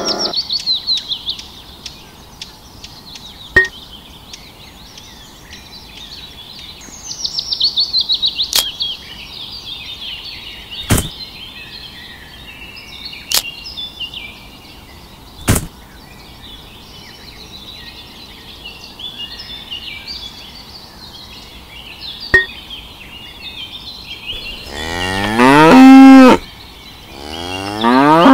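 A cow moos twice near the end, long calls that fall in pitch and are the loudest sound here. Before that there is a steady background of small birds chirping and trilling, with a few sharp clicks.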